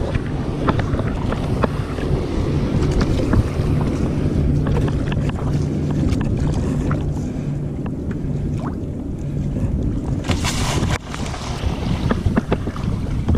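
Water slapping and splashing against a sea kayak's hull as it paddles into a powerboat's wake, with wind buffeting on the microphone and many short knocks from the chop. About ten seconds in a loud splash as the bow plunges through a wave.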